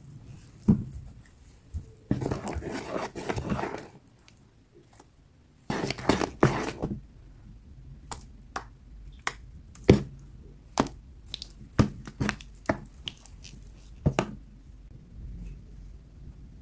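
Crumbly green material being crushed by hand: two stretches of crunching in the first half, then a series of single sharp cracks spaced roughly half a second to a second apart.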